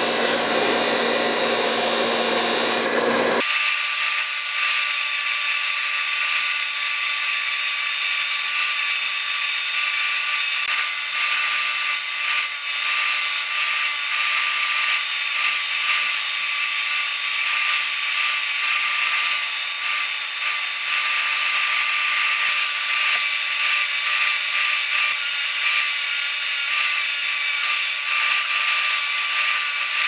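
Bench grinder running with a wire wheel while a Zexel diesel injector body is held against it and buffed clean: a steady motor whine under the scratchy hiss of the wire. The sound changes about three seconds in and then stays even.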